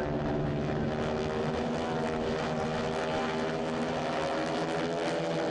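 North American AT-6 Texans' nine-cylinder Pratt & Whitney R-1340 radial engines and propellers droning overhead in a steady, even tone.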